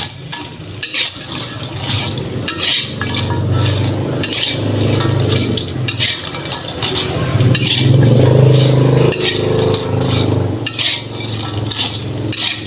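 Food frying in a pan with a steady sizzle, while a utensil stirs it, scraping and clinking against the pan many times. A low hum runs underneath.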